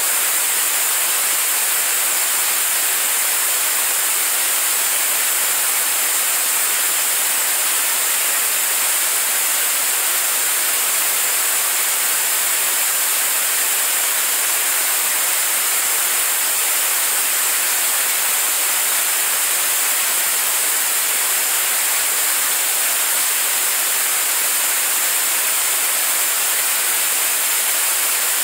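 Staged-combustion liquid-propellant rocket engine in a steady hot-fire burn: an even, unbroken roar of exhaust, heavy in hiss and with almost no deep rumble.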